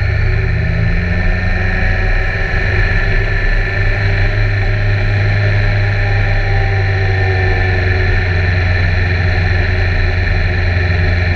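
BMW K1300R's inline-four engine running at fairly steady revs while the motorcycle is ridden, heard close to the engine.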